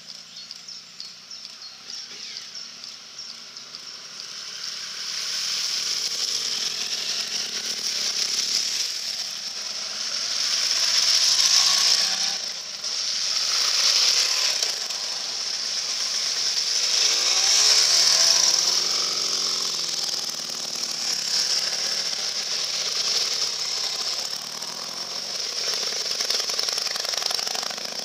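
Several motorcycles ride one after another through a shallow ford: their engines run and rev as each passes, and their tyres throw up splashing water over the hiss of the running stream. The sound swells from about five seconds in and peaks several times as bikes go by.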